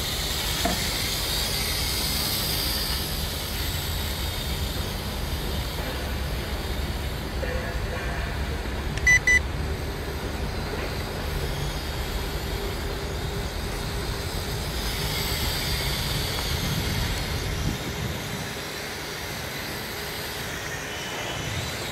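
Wind buffeting the microphone, over the faint whir of a small toy quadcopter's propellers that swells twice as it flies closer. Two short high beeps about nine seconds in.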